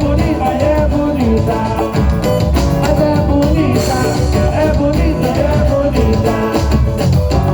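Music with a steady pulsing bass beat and pitched instruments.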